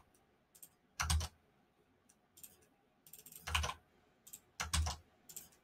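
Typing on a computer keyboard: a few short clusters of key clicks, about a second in, around three and a half seconds in and near five seconds, with near silence between.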